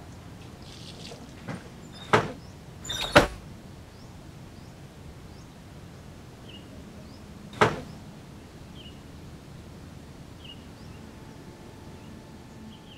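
A few sharp door-like knocks or bangs over a low steady hum: two in the first couple of seconds, a quick cluster of three soon after, and one more about halfway through. Small short chirps, like birds, sound now and then in the second half.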